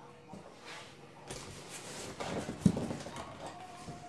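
Handling noise: cardboard rustling and a few hollow knocks, the sharpest about two and a half seconds in.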